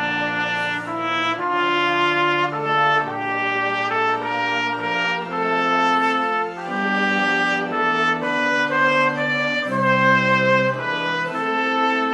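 Instrumental church music: full sustained chords over a slowly stepping bass line, the notes changing about once a second.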